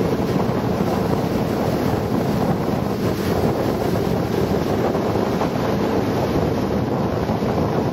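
Steady wind buffeting the microphone over the drone of an open motor launch running under way, with water rushing past the hull.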